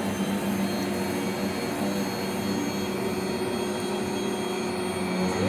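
Rainbow water-filtration canister vacuum cleaner running steadily with a high motor whine.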